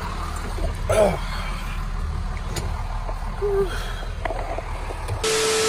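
Box truck's engine idling, a steady low rumble heard from inside the cab, with a few short voice sounds over it. About five seconds in, a loud hiss with a steady hum-like tone starts suddenly.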